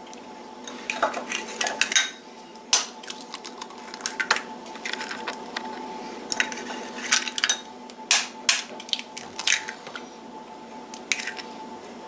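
Eggs cracked open with a table knife: sharp taps of the blade on the shells and clicks of shells set into a small ceramic dish, a dozen or so irregular clicks over a faint steady hum.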